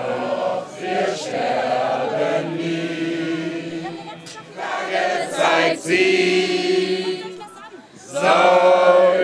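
A large crowd of voices chanting together in unison, in long held phrases with short breaks between them.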